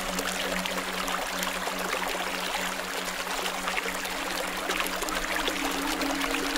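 Steady, even rushing noise like running water, sprinkled with faint tiny crackles, over low sustained tones from soft background music.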